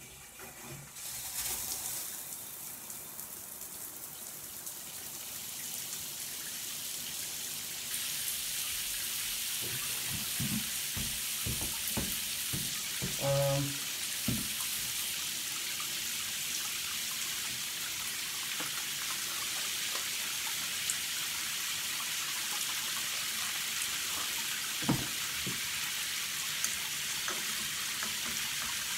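Water running from a bathtub faucet, a steady rushing hiss that builds over the first couple of seconds and grows louder about eight seconds in, with a few knocks in the middle and one more near the end. The water is on to test the newly fitted three-handle faucet for leaks.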